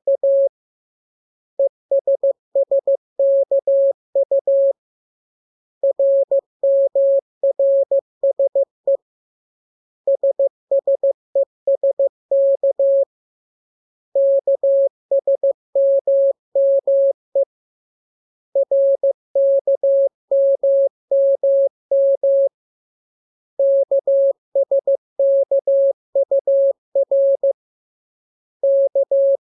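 Morse code (CW) practice transmission: a single steady beep keyed on and off into dots and dashes, sent in character groups about three to four seconds long with a pause of about a second between groups.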